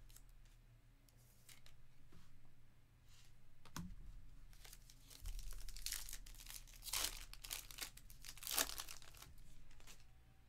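Foil wrapper of a trading-card pack being torn open and crinkled by hand, a series of short rustles that are loudest from about six to nine seconds in.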